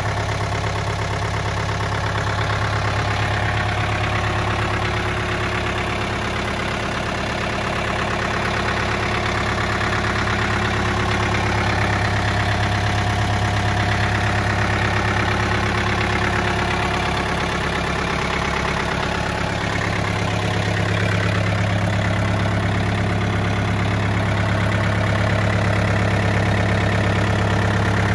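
Mitsubishi MT21 compact tractor's diesel engine idling steadily.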